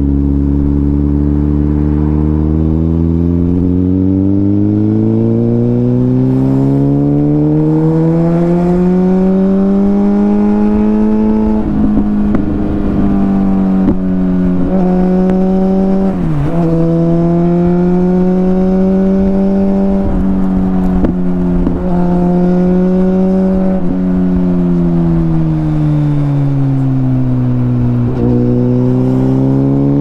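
Suzuki GSX-R1000's inline-four engine running under way, its note climbing slowly over the first ten seconds and then holding. It dips sharply for a moment three times in the middle, falls off, and climbs again near the end.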